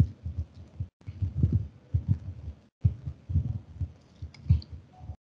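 Irregular low, muffled thumps and bumps coming through a video-call microphone. The audio cuts out completely for a moment three times.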